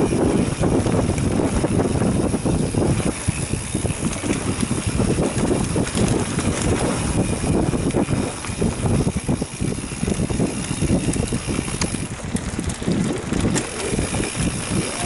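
Mountain bike riding down a dirt singletrack: constant wind buffeting on the camera microphone over the rumble of knobby tyres on dirt, with small clicks and rattles from the bike over bumps.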